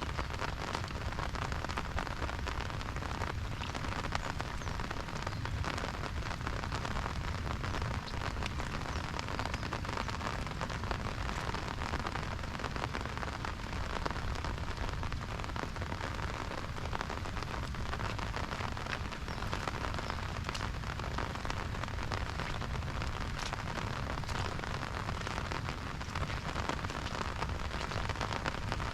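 Steady rain falling, with dense close drops ticking on an umbrella overhead.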